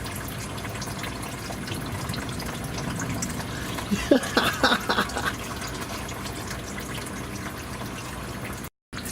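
Used engine oil trickling and dripping steadily into a drain pan during an oil change. About four to five seconds in there is a short burst of clatter and handling noise.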